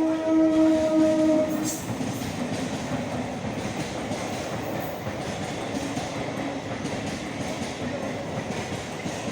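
Train horn holding one loud note that stops about a second and a half in, then the steady noise of the train's cars running past over the rails.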